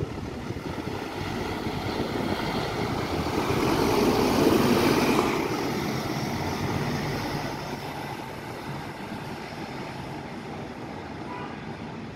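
Scania N230UB OmniCity single-deck bus pulling away under power, its five-cylinder diesel and tyres loudest as it passes close about four to five seconds in, then fading as it drives off.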